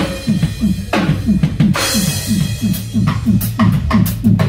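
Live reggae band playing without vocals: a steady drum-kit beat of about four strokes a second over a low bass line, with sharp cymbal and snare hits now and then.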